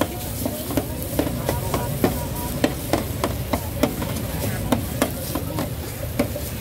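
Metal spatula clanking and scraping against a wok as food is stir-fried, in quick irregular strikes about two or three a second, over a steady background din.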